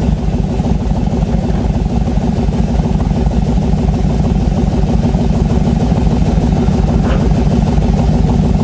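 The BRDM-2 armoured car's GAZ-41 V8 petrol engine runs steadily and grows a little louder toward the end, as the stuck vehicle tries to reverse out.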